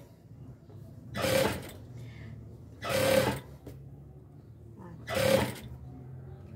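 Industrial sewing machine stitching ruffled fabric strips onto a rug in three short runs of about half a second each. Its motor hums steadily between the runs.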